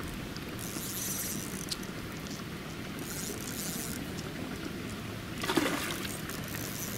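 Water splashing and trickling at the surface as a hooked trout is played on a spinning rod, with a brief louder splash about five and a half seconds in.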